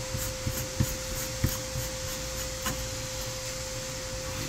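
A rifle suppressor being hand-threaded onto a half-by-28 threaded barrel: faint scraping of metal threads with a few light clicks, over a steady hum.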